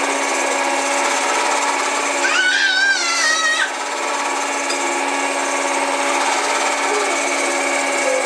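Electric stand mixer motor running steadily, its beaters working cake batter, with a steady hum. A brief wavering high-pitched sound rises over it about two seconds in.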